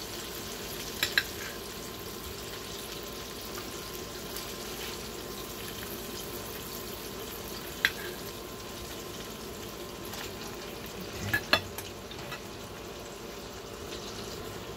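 Butter sizzling steadily in a hot skillet as cubes of ground beef fry. A few sharp clicks of a knife striking a ceramic plate cut through it: a pair about a second in, one near the middle, and another pair about three-quarters through.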